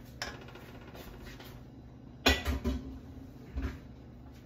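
Kitchenware being handled: a sharp knock about two seconds in, then two lighter knocks and another small one later, over a low steady hum.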